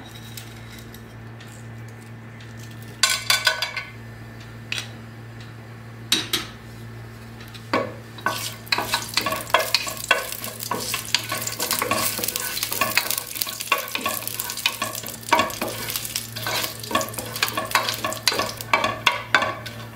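Whole spices (star anise, cinnamon, cloves, cardamom) going into hot sunflower oil in a pot with a few short clatters, then sizzling and crackling as they are stirred with a wooden spatula; the crackle grows dense from about eight seconds in. A steady low hum runs underneath.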